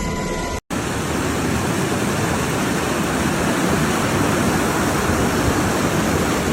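Floodwater of an overflowing stream rushing past in a flash flood: a steady, even rush of water that starts after a brief cut-out about half a second in.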